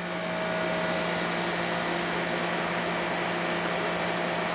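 Ryobi 2300 psi electric pressure washer running with the trigger held: a steady motor-and-pump hum under the hiss of water spraying from the 15-degree nozzle. It starts up right at the beginning and settles within about a second, running at full pressure of about 2150 psi.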